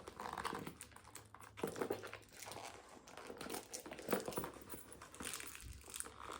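Soft rustling and crinkling of wrapping with small irregular clicks and taps as the handbag and its packaging are handled.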